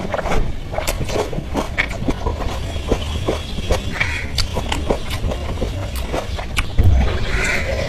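Close-up eating sounds: irregular crunching and chewing of food, with a steady low hum underneath.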